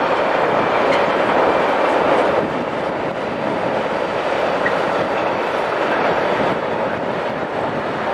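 Container freight train's wagons rolling past, a steady noise of wheels on rail.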